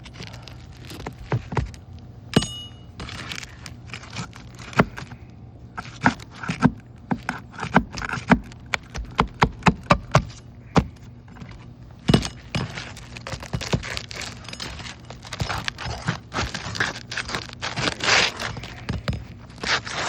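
Scraping, crackling and many sharp clicks and knocks as old, brittle 3-tab asphalt shingles are worked loose and handled on a roof, with the busiest run of clicks near the middle and a longer stretch of scraping near the end.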